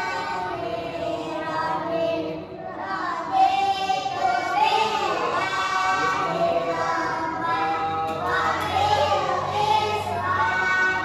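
A group of children singing a melody together in unison.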